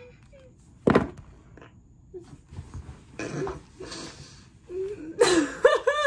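A single sharp, loud cough-like vocal burst about a second in, then a woman laughing near the end.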